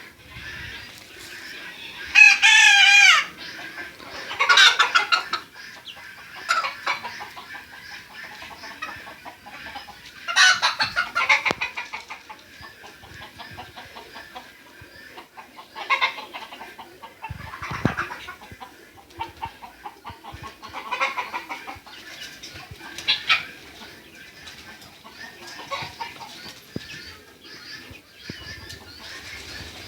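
Flock of chickens clucking and calling on and off, with a loud drawn-out call that falls in pitch at its end about two seconds in.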